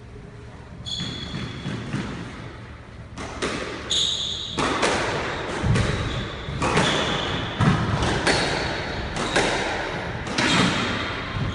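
A squash rally: the rubber ball struck by rackets and smacking off the court walls in sharp hits about once a second, with short high squeaks of court shoes on the wooden floor between them.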